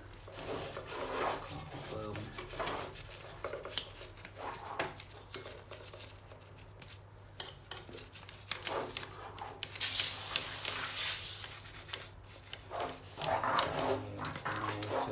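Toothbrush bristles scrubbing the soapy chassis of a 1/14-scale RC truck in quick, irregular scratchy strokes. About ten seconds in, a loud hiss lasts about two seconds.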